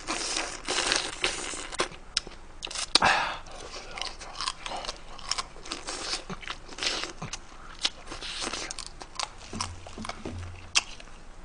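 Close-up chewing and biting of a spicy crab and bean sprout mix, with crunching and many short wet mouth clicks.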